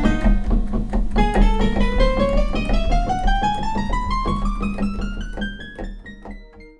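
Roland D-10 synthesizer being played: a fast run of short notes climbing steadily in pitch over a held low bass, fading out near the end.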